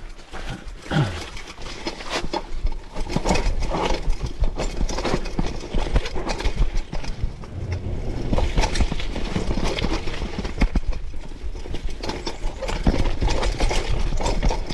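Mountain bike ridden over a rough trail, rattling and clattering rapidly and irregularly over bumps, with a steady low rumble of wind on the microphone.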